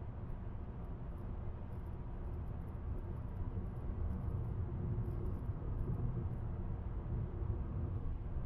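A car driving at a steady speed on an open road: a steady low rumble of tyre and engine noise.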